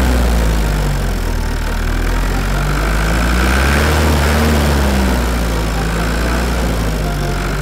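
A motor running steadily with a deep hum whose pitch wavers slightly, over a rushing noise.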